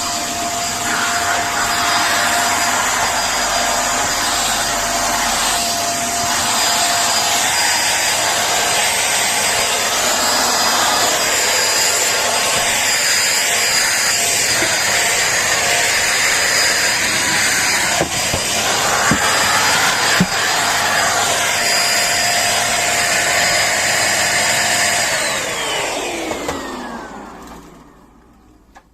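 Vacuum cleaner running with a steady whine and airflow noise, with a few sharp knocks about two-thirds of the way through; near the end it is switched off and the motor winds down, its whine falling in pitch as it fades away.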